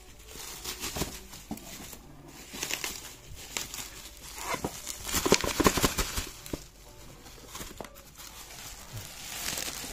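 Bubble wrap crinkling and rustling as a wrapped package is handled, in uneven crackles that are loudest about five to six seconds in.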